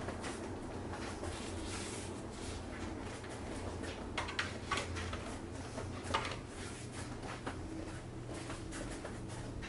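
Philips GC557/30 upright garment steamer running: a steady low hum under a hissy rustle, with short sharp taps and brushes, most of them in the middle, as the steam head is drawn over a shirt.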